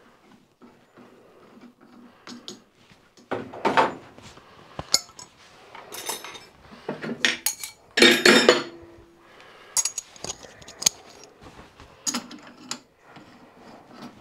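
Steel lathe tooling clinking and clattering as it is handled, a collet and collet nut being fitted into the collet holder held in the four-jaw chuck. Scattered light clinks, with louder clattering clanks about four seconds and eight seconds in, one leaving a short metallic ring.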